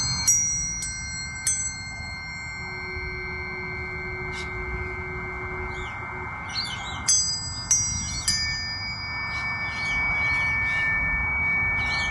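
Planetary tuning forks struck three times near the start and three more times a few seconds before the end, each strike a bright metallic ping that rings on as a long pure tone. A lower pure tone hums on its own for a few seconds in the middle.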